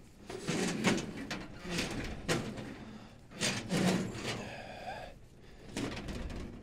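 Copper tubing of a coil wound around a stovepipe being handled and bent by hand: a series of irregular knocks, scrapes and rattles of the tubing against the metal, some with a short ring after them.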